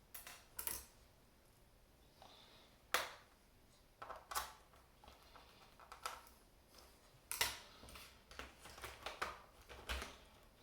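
Irregular sharp clicks and taps of small plastic and metal parts being handled, as a Toshiba L50-B laptop is worked on to put its old RAM stick back in. The loudest clicks come about three seconds in and again past seven seconds.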